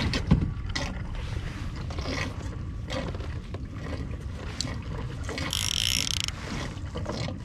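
Conventional fishing reel being cranked to bring the line up, its gears clicking. There is a sharp knock just after the start and a brief hiss about five and a half seconds in.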